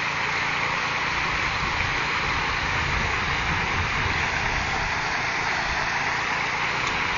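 Steady rush of river water pouring over a concrete weir.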